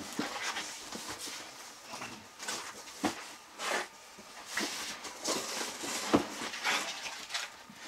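Hands opening and rummaging in a cardboard shipping box: irregular rustling, scraping and light knocks of cardboard and packing.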